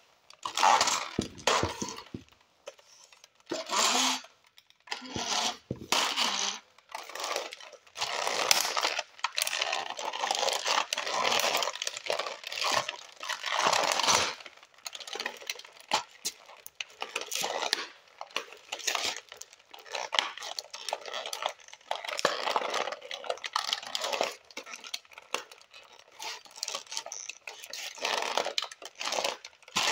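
Toy model cars clattering, clinking and scraping against each other and a concrete floor as they are stomped on and crushed underfoot, in an irregular run of many small impacts.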